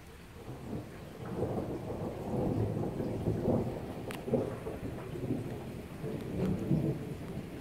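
Rolling thunder rumbling over steady rain. The rumble swells about a second in and keeps rising and falling.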